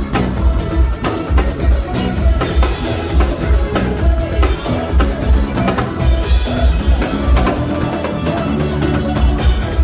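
Live band playing an instrumental groove at a sound check: a drum kit keeping a steady beat under a heavy, pulsing bass line.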